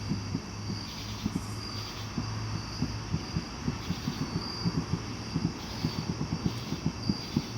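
Rapid, irregular low banging, several dull thumps a second, over a steady low hum and a thin high tone; the source is unexplained.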